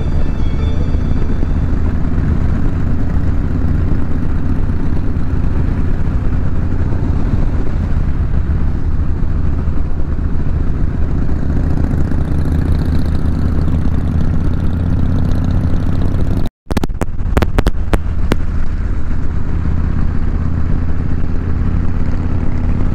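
Cruiser motorcycle engine running steadily at road speed, heard from on the bike with road noise. About seventeen seconds in, the sound drops out for an instant, then a few sharp clicks follow.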